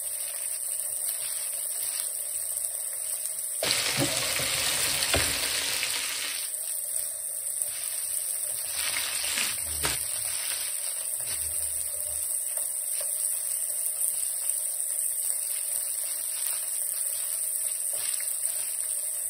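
Breaded Black Sea gobies sizzling in hot oil in a frying pan, a steady hiss that grows louder and fuller for a few seconds about four seconds in. A few faint pops sound over it.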